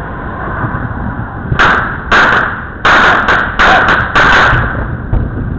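A quick cluster of about six loud consumer firework bangs over about three seconds, starting about a second and a half in, over a steady low background rumble.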